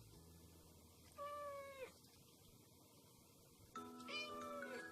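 Chinchilla Golden (long-haired Persian-type) cat meowing for a treat that is being held out to it: one drawn-out meow about a second in that drops in pitch as it ends, and another short meow near the end as background music comes in.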